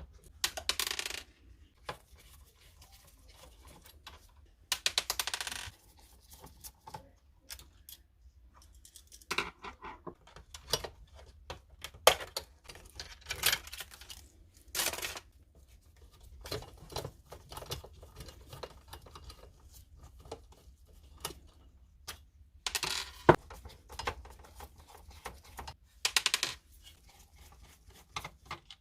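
Irregular clicks, knocks and clatter of plastic and small metal printer parts being handled and pried apart while a Canon printer is disassembled. Several short scraping rasps, each about a second long, come near the start, around five seconds in, and twice near the end.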